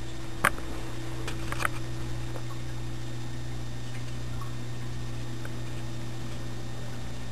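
Steady low electrical hum, with a few sharp clicks and taps in the first two seconds.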